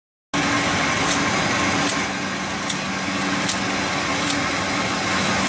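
Shrink-sleeve neck labeling machine running: steady mechanical noise with a low hum that switches on and off, and a light tick roughly every second. The sound starts abruptly just after the beginning.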